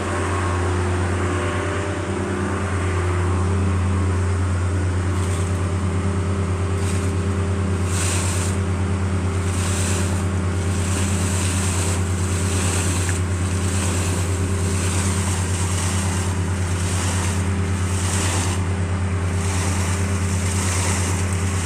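Air compressor engine running steadily while it blows out a borewell. From a few seconds in, rushing, hissing surges of air and water gush out of the well about once a second over the engine's hum.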